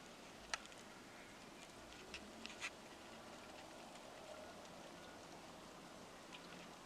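Near silence: a faint steady hiss with a few sharp ticks, one about half a second in and a small cluster around two to two and a half seconds in.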